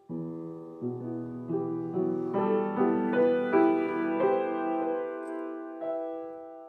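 Solo piano playing a run of chords that climb and grow louder for the first three and a half seconds or so, then a held chord dying away, with one more soft chord near the end.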